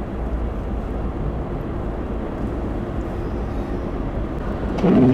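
Steady low rumble of a car's engine and tyres on the road, heard from inside the cabin while driving. Near the end there is a brief, louder sound lasting about half a second.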